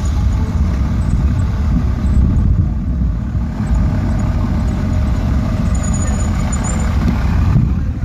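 Steady low rumble of street traffic, with a motor vehicle close by.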